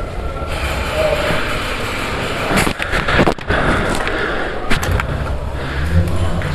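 Steady rustling and rumbling handling noise, with a quick cluster of sharp clicks a little under three seconds in and another click near five seconds.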